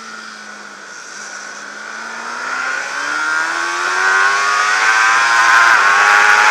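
600 cc supersport racing motorcycle engine from on board, running at low revs through a corner, then rising steadily in pitch and loudness as the bike accelerates out. A quick upshift comes near the end.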